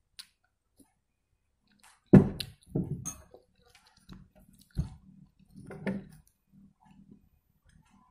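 A ceramic bowl set down on a table with a sharp knock about two seconds in, followed by lighter clinks and handling knocks of spoons, bowls and a glass, with chewing in between.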